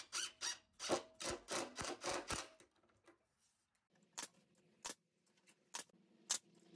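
Cordless impact driver sinking a screw into a wood corbel, a quick string of rattling strokes for the first two and a half seconds. Then a pneumatic brad nailer fires four sharp single shots, from about four seconds in, roughly half a second to a second apart.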